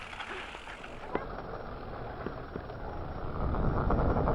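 Mountain bike riding down a dirt trail: tyres rolling over dirt with wind noise on the camera's microphone, a few light clicks and rattles, and the rumble growing louder about three seconds in as speed picks up.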